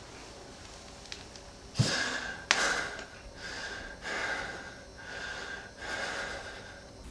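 A man breathing heavily through his open mouth in gasps, in and out about once a second, starting about two seconds in. Two sharp clicks come as the breathing begins.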